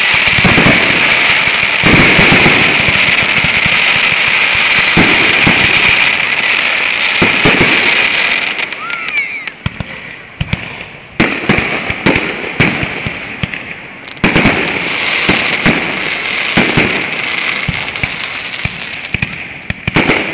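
Aerial fireworks display: dense crackling for the first eight seconds or so, then a run of separate sharp bangs from shells bursting overhead, with a brief rising whistle about nine seconds in.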